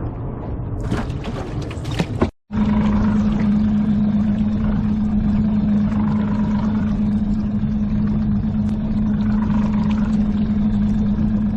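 A boat's engine runs steadily with a constant low hum under a rushing haze of wind and water noise. It is preceded by a couple of seconds of knocks and handling noise that break off abruptly.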